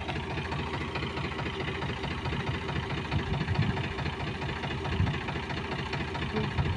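Tractor diesel engine running steadily with an even, fast firing pulse, the Powertrac Euro 50 working in deep mud with its front wheels sunk.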